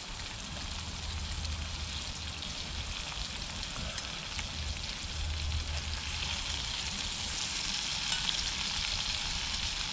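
Potatoes frying in a cast iron skillet over a wood-burning twig stove: a steady sizzle that grows louder over the last few seconds.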